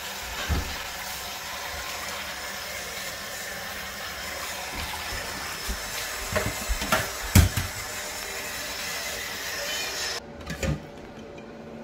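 Kitchen tap running steadily into a steel sink, with a few sharp knocks of dishware being handled partway through. The water stops abruptly about ten seconds in.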